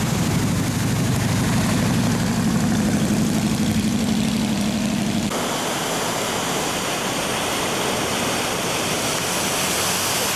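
Cars driving through deep floodwater: an engine hum under water splashing and rushing from the tyres. About five seconds in the sound cuts to a brighter, steady rush of splashing water as more cars plough through the flood.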